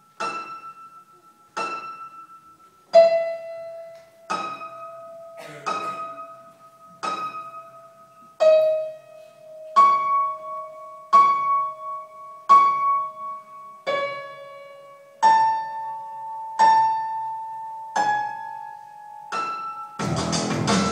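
Slow piano music: evenly spaced notes struck about one every second and a half, each ringing on and fading away, the pitch stepping up and down between strikes. Just before the end a louder, fuller music track cuts in.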